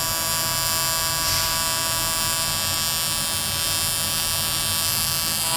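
AC TIG welding arc on aluminum buzzing steadily as the bead is run and filler rod is added.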